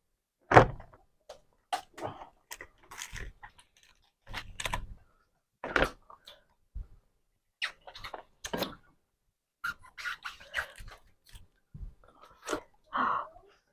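Close-up eating of king crab: scattered clicks, taps and knocks from the shell being handled and pulled apart, with chewing.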